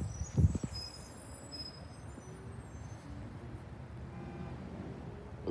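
Garbage truck engine running out of sight down the street, a steady low rumble, with a few sharp thumps about half a second in.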